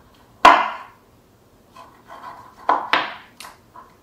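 Knife cutting through a rack of smoked pork ribs and striking a wooden cutting board. There is one sharp knock about half a second in, a few light taps, then two more knocks and a short click near the end.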